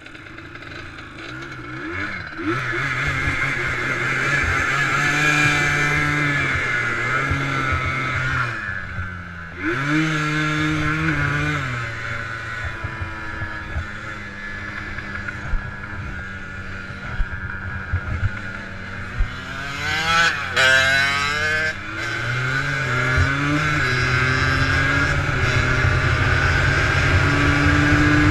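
Yamaha Blaster 200 quad's two-stroke single-cylinder engine under way. The engine pitch climbs and falls as the rider shifts and eases off, with a quick rev up and down about three-quarters of the way through. Wind rushes over the microphone, with a few sharp knocks near the middle.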